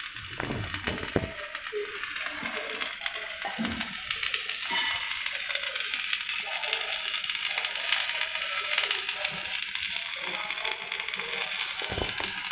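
Stick-welding (SMAW) arc crackling and sputtering steadily as a coated electrode is burned overhead into a steel joint. A few low knocks come through about a second in and again near the end.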